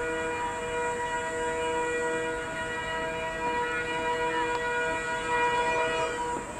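WDM3A diesel locomotive's air horn held in one long steady blast, several notes sounding together as a chord, cutting off near the end.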